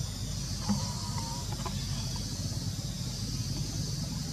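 Steady outdoor background noise: a low rumble with a high hiss over it, and a few brief faint chirps about a second in.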